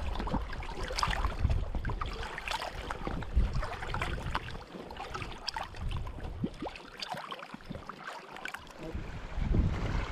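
Small waves lapping and splashing irregularly against shoreline rocks, over a low wind rumble on the microphone that drops away briefly about seven seconds in and comes back strongly near the end.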